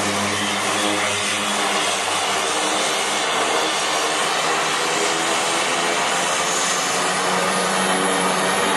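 High-wing twin-engine turboprop plane on its takeoff roll at full power: steady, loud engine and propeller noise, with a low hum that fades about two seconds in as the plane pulls away.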